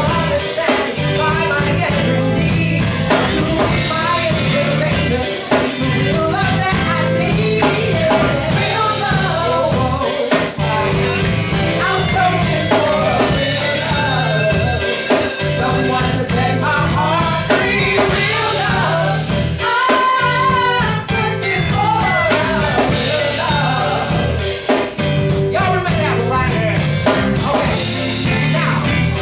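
Live soul band playing: lead and backing vocals over electric bass and a drum kit, with steady cymbal strokes.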